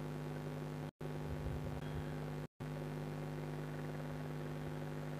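A steady low electrical hum with faint hiss. The sound cuts out completely twice, briefly: about a second in, and again about two and a half seconds in.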